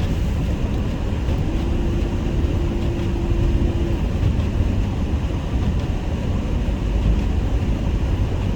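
Steady road and engine noise inside a moving car's cabin on a cleared highway. A steady tone sounds for about two and a half seconds starting a second and a half in.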